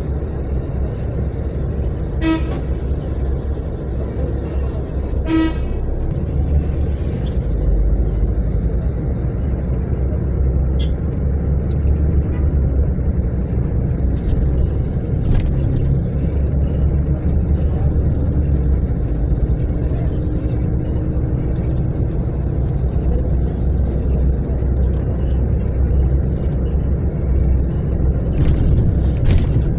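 Steady low rumble of a natural-gas city bus's engine and road noise, heard from inside the cabin while it drives through traffic. Two short vehicle-horn toots sound about three seconds apart near the start.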